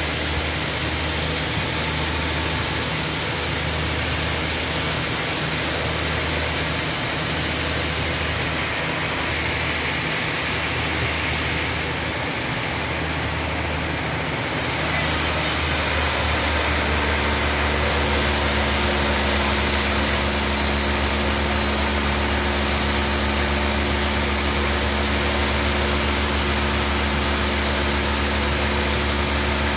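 Large bandsaw mill running steadily, its band blade sawing through a big hardwood log, over a constant machine hum. About halfway the sound shifts and then runs a little louder and steadier.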